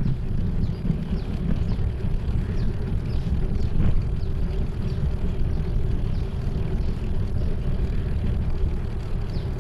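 Wind buffeting the microphone of a camera on a moving bicycle: a steady low rumble, with faint high chirps now and then.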